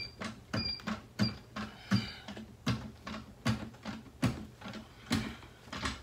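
Hydraulic floor jack being pumped by its handle to lift a car, a clack on each stroke about every three quarters of a second, with a short squeak on the first few strokes.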